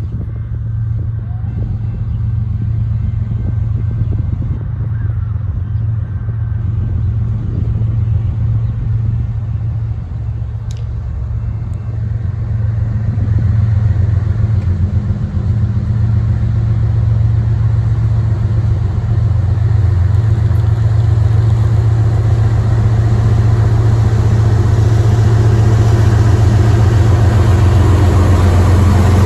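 CSX freight train's diesel locomotives approaching and coming alongside, their engines' steady low drone growing gradually louder. Wheel and rail rattle build up in the last third as the lead units draw level.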